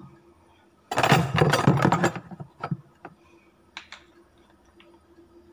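Small make-up items clattering and knocking as they are handled, in a burst about a second and a half long starting about a second in, followed by a few light separate clicks and taps. A faint steady hum runs underneath.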